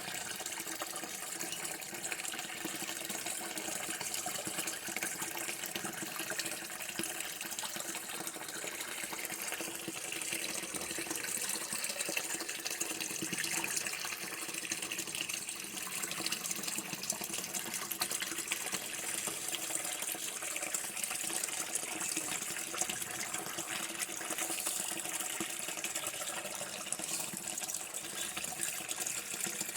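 Running water from a tap, a steady continuous stream splashing without a break.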